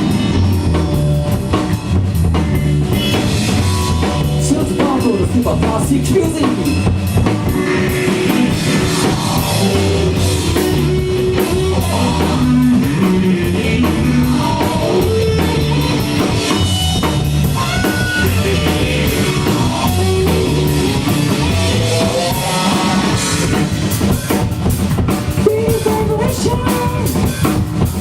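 Live rock band playing: a drum kit keeps a steady beat under guitar and a moving bass line.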